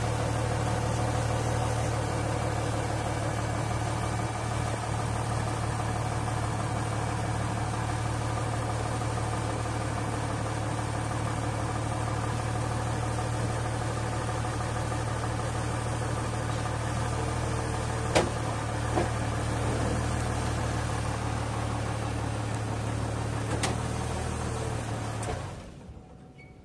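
A motor or engine running steadily at idle, with a couple of sharp clicks, then shutting off near the end.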